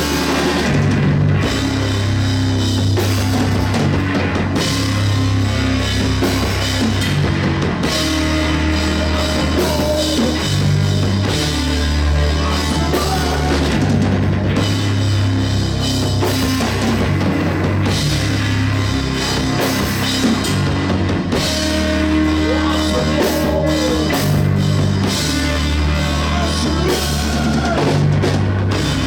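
Heavy rock music with a full drum kit and crashing cymbals over low bass notes that change every second or two, steady and loud.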